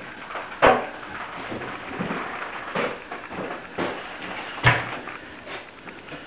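A few scattered knocks and bumps in a small tiled room, the two loudest about a second in and near the end.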